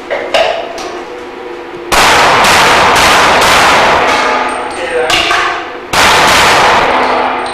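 Rapid pistol shots in two strings a little under two seconds apart, the shots roughly half a second apart, with steel targets ringing as they are hit.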